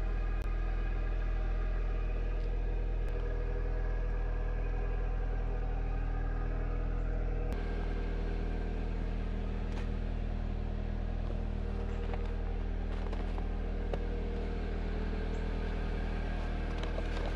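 2020 Subaru WRX's turbocharged flat-four engine idling steadily, its note shifting slightly about halfway through.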